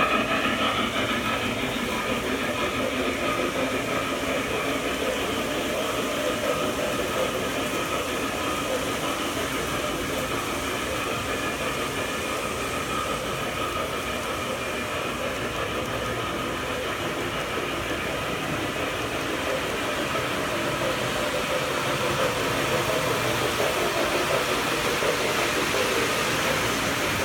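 Model train cars, a long string of loaded coal hoppers, rolling past on the track: a steady rolling noise of metal wheels on rails, growing a little louder near the end.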